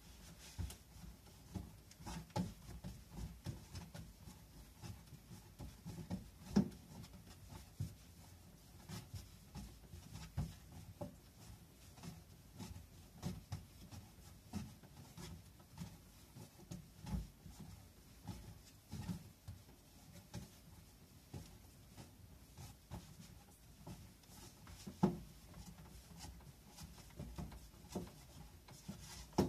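Salt-bread dough being kneaded by hand on a wooden cutting board: irregular soft thumps and rubbing, with two sharper knocks, about six seconds in and near the end.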